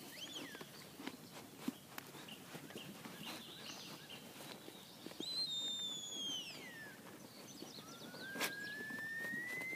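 Shepherd's whistle commands to a working sheepdog. About five seconds in, a long high whistle rises briefly and then slides down. Near the end a long whistle rises steadily, with a few sharp knocks between them.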